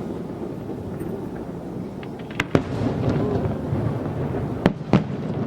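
Fireworks going off: a continuous low rumble of distant bursts, with sharp bangs about two and a half seconds in and twice in quick succession near the end.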